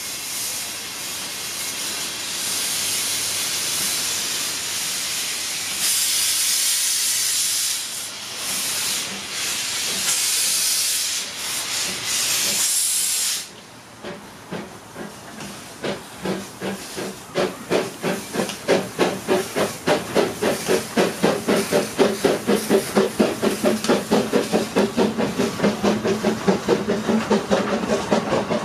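Narrow-gauge steam locomotive pulling away. For about 13 seconds there is loud hissing steam with a few short breaks, which then cuts off sharply. Rhythmic exhaust chuffs follow and quicken to about two or three a second as the train gathers speed.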